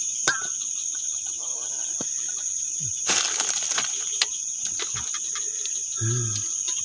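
Steady night chorus of cricket-like insects, one constant high-pitched trill, with scattered clicks and rustling from sticks and a plastic bag being handled to build a fire. The loudest rustle comes about three seconds in.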